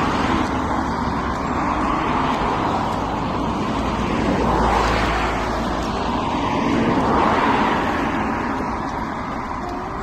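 Traffic noise with vehicles passing close by, swelling about halfway through and again a little after.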